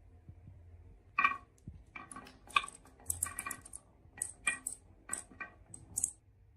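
Marbles clicking and clattering down a HABA wooden marble run, a quick irregular series of sharp clacks that starts about a second in and stops near the end.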